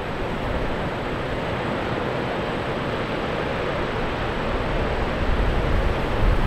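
Steady roar of wind and surf from the breaking waves below, with wind gusting against the microphone near the end.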